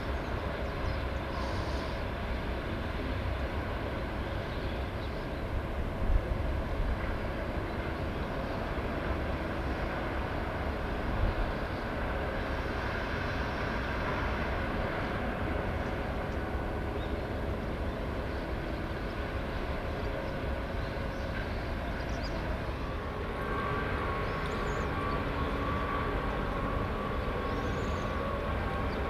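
Steady shipyard machinery din: a low rumble with several faint humming tones, and two brief thumps about six and eleven seconds in. A steadier higher hum joins about two-thirds of the way through.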